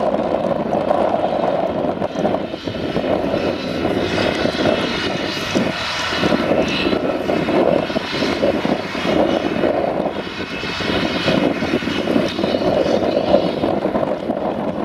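Claas Jaguar 950 self-propelled forage harvester running under load as it chopes and blows grass into a trailer, a steady heavy engine drone mixed with the tractor pulling the trailer alongside.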